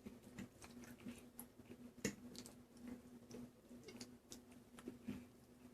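Faint eating sounds from someone eating penne pasta: scattered soft clicks and chewing, with the sharpest click about two seconds in, over a low steady hum.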